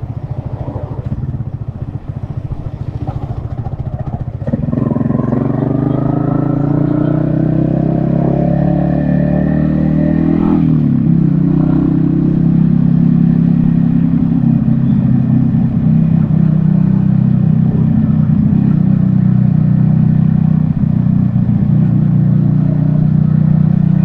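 Yamaha XSR155's single-cylinder engine, heard from the rider's seat, running low and slow, then pulling away hard about four and a half seconds in with its pitch climbing. The pitch drops sharply at a gear change about ten and a half seconds in, and the engine then settles into a steady cruise.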